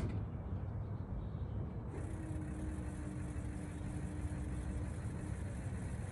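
Ford 6.0 Power Stroke V8 turbo-diesel idling through a straight-piped, catless side-exit exhaust after a cold start, a steady low rumble. A faint steady whine comes in about two seconds in and stops about five seconds in.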